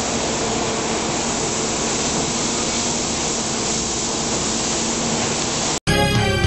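Plastic injection molding machine running with its mold clamped shut: a steady hiss with a low hum. Near the end it cuts off abruptly and music starts.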